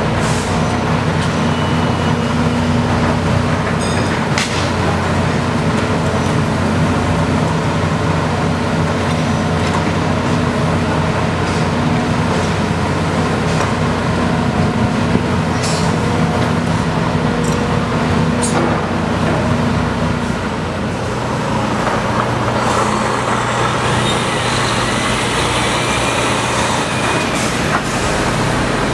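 Diesel engine of a long-reach excavator running steadily while its long arm hoists a bucket of earth out of the pit. A few short knocks sound through it, and the engine note changes about two-thirds of the way through.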